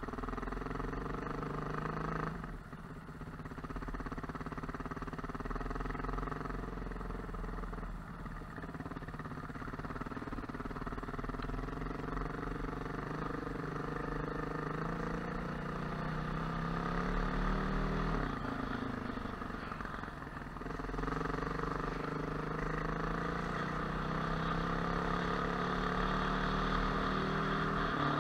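Trail motorcycle engine running at low riding speed, its note rising and falling with the throttle, with brief lulls about two, eight and twenty seconds in as the throttle is closed.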